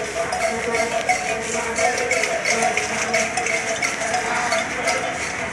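Group of people singing jama chants over a steady rhythmic beat.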